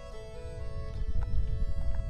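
Background music with long held notes, under a low rumbling noise that swells in from the start and soon becomes louder than the music.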